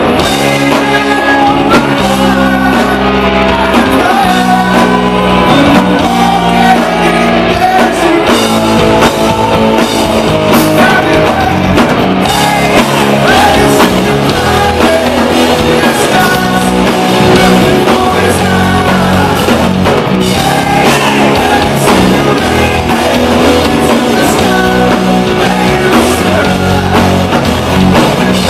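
Southern rock band playing loud and live: distorted electric guitars, bass and drum kit, with a lead vocal singing over them.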